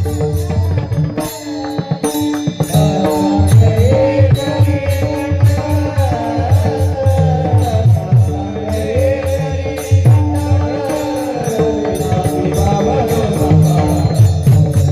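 Devotional kirtan music: a pakhavaj-style hand drum beats a steady rhythm under a held drone, with a wavering melody line above.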